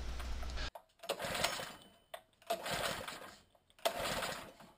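GX200-clone single-cylinder engine with a 3D-printed Roots supercharger being pull-started three times, about a second and a half apart: each pull gives a brief whirring crank that fades without the engine catching. The owner suspects the engine is not getting enough fuel through the carburetor.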